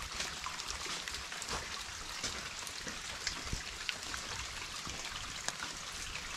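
Steady heavy rain falling, with many close raindrops ticking at irregular moments.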